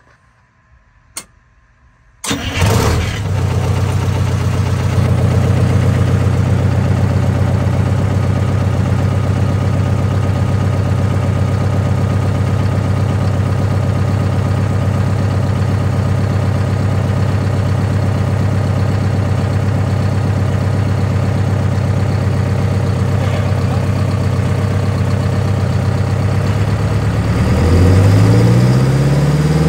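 Detroit Diesel two-stroke bus engine starting up suddenly about two seconds in, then idling steadily. Near the end it revs up.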